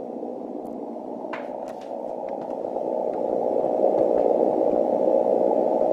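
Hiss-like static from a 160-meter amateur radio receiver's speaker, held to a narrow, muffled band, with a few faint ticks. It grows louder about two to four seconds in: common-mode noise picked up on the antenna rotator's control cable once its wire is connected.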